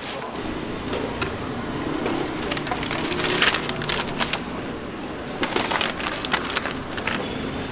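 Paper and cardboard food packaging crinkling and crackling as it is handled, in two bouts of dense crackling about three and five and a half seconds in.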